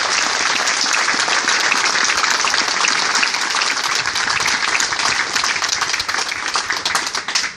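Audience applauding steadily, dense clapping that dies away at the very end.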